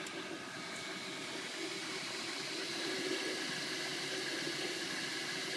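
MakerBot Replicator 3D printer running mid-print: a steady whir from its fans with a faint wavering hum from the motors moving the extruder head.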